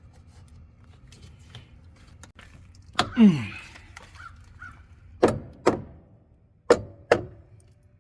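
Knocks on the new wooden 2x4 framing of a truck camper wall, coming in pairs about half a second apart. There is a louder thud with a falling tone about three seconds in.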